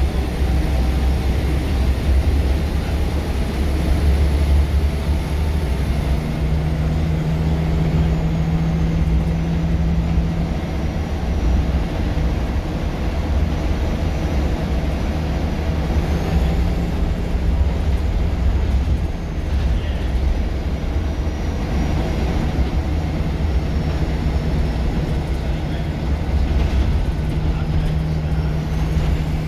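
Scania L94UB single-deck bus heard from inside the passenger saloon while under way: a steady low engine drone with road noise. A humming tone comes in about six seconds in, fades, and returns near the end, and a faint high whine drops in pitch early on and rises again near the end.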